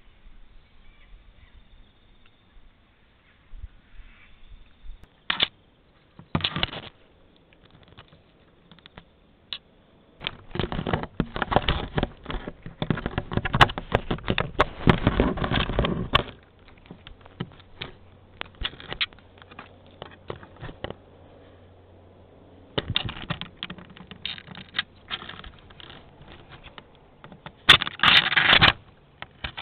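An animal rubbing and nosing against a trail camera, scratching and scraping right at its microphone: a few scattered clicks, then two long spells of dense crackling, one about a third of the way in and one near the end.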